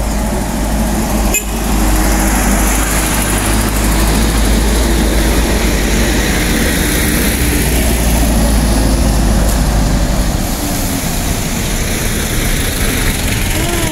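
Heavy diesel trucks working up a climb, a steady low engine rumble as one passes close by; the rumble eases somewhat about ten seconds in as it pulls away.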